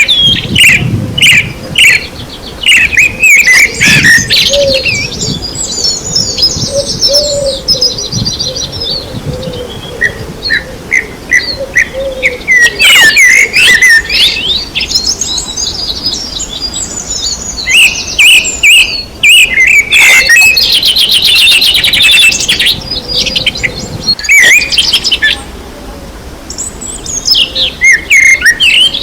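Several songbirds chirping and singing, with many short chirps and rapid trills, some of them high-pitched.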